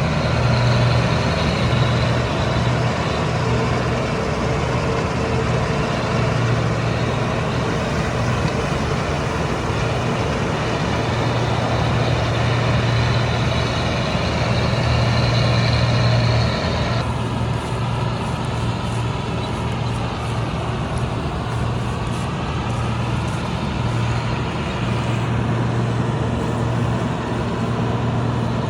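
Combine harvester's diesel engine running steadily under load, with a low, even drone; about two-thirds of the way through the sound changes abruptly and drops slightly in level.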